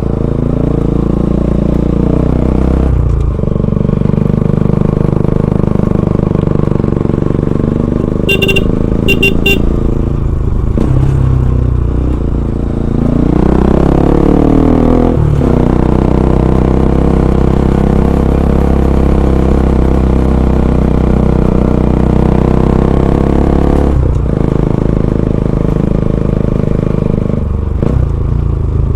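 Bajaj Pulsar NS200's single-cylinder engine through an aftermarket Akrapovic full-system exhaust, under way at speed: the pitch rises as it revs up through a gear, then drops sharply at each gear change, with long steady stretches at cruising revs between. A couple of short high beeps come about eight seconds in.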